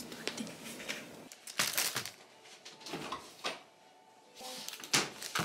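Kitchen clatter: a series of sharp knocks and clicks as food containers are handled and set down on a wooden counter, the loudest about a second and a half in and again near the end.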